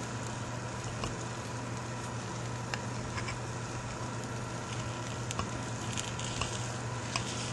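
Freshly baked, still-hot cheddar quiche sizzling in its dish, with a soft hiss and scattered small crackles, over a steady low hum.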